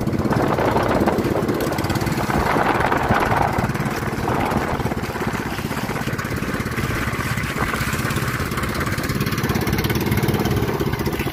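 Small motorised outrigger boat's engine running steadily while under way, with a steady rush of wind and water from the hull and outrigger float cutting through choppy sea.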